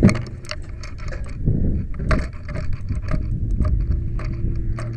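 Rattling and knocking of a camera being jostled and handled, with a sharp knock at the start, over the low rumble of a running vehicle engine that settles into a steady drone near the end.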